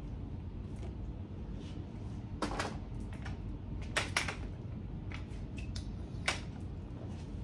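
A hairbrush swept through a mannequin head's long hair as it is brushed up and gathered by hand: a few brief scrapes and rustles, the loudest about two and a half and four seconds in, over a steady low hum.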